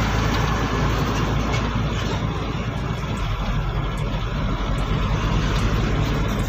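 Eicher Pro 2095 CNG truck driving on a highway, its engine and road noise steady inside the cab. The low engine drone changes about three seconds in.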